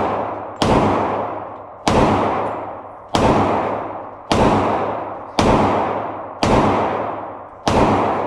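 Handgun firing slow, evenly spaced single shots, seven in all at about one a second, each shot followed by a long echoing decay.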